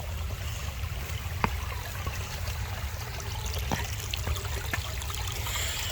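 A small stream trickling over a steady low rumble, with a few faint clicks.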